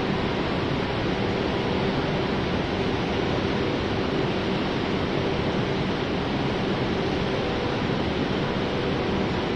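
Steady rushing noise with a faint steady hum underneath, as a CR400AF Fuxing high-speed electric train pulls away from the platform under the station canopy.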